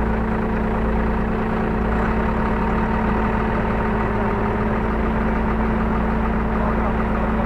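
Hyundai R35Z-9A mini excavator's diesel engine idling steadily, heard from inside the cab.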